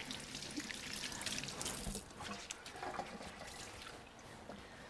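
Kitchen tap running into a stainless steel sink while hands are washed under it, water splashing and trickling; the flow is strongest in the first two seconds and then eases off.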